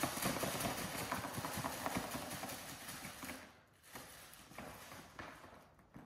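A paper gift bag with tissue paper being shaken hard: the contents knock and rattle rapidly inside and the paper rustles. The shaking stops about three and a half seconds in, leaving a few lighter rustles and taps.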